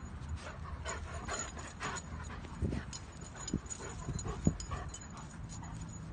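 A dog making a few short vocal sounds during play, the loudest about four and a half seconds in, among scuffling and clicks.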